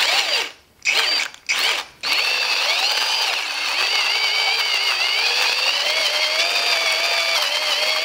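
Cordless drill turning a manual ceramic-burr coffee grinder: three short bursts, then running steadily from about two seconds in, grinding the beans. Its whine wavers a little in pitch.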